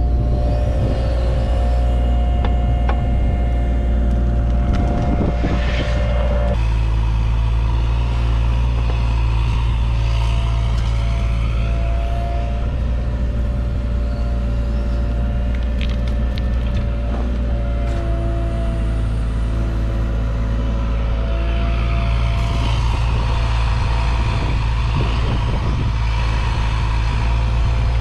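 Cat 303.5 mini excavator's diesel engine running steadily at working speed, with a steady whine above it that drops slightly in pitch about six seconds in.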